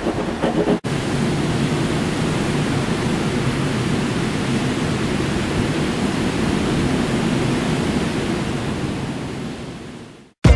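Waves breaking on a beach: a steady rushing surf noise that fades out near the end.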